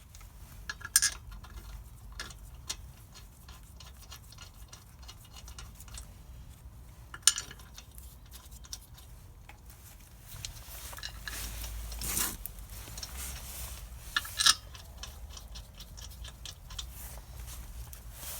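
Hand tools and wheel parts being handled, with a few sharp metallic clinks and knocks spaced several seconds apart and light shuffling and scraping in between.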